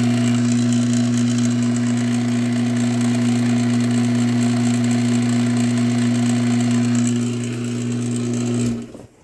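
LiftMaster 1245 garage door opener motor running steadily with a strong low hum, then cutting off suddenly near the end. The motor runs as soon as it is plugged in and the wall button will not stop it, a fault the owner puts down to a faulty logic board or miswiring.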